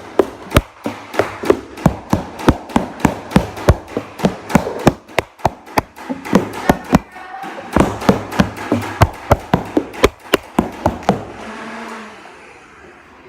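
Nerf Rival Khaos motorized flywheel blaster firing foam balls on full auto: a steady motor hum under rapid sharp shots at about three to four a second, with two brief pauses midway. The firing stops about eleven seconds in and the flywheels spin down.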